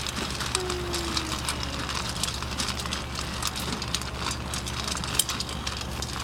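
A litter of Bedlington Terrier puppies eating together from a round stainless-steel feeding pan: a dense, continuous patter of small clicks and clinks from mouths and teeth working at the food and the metal.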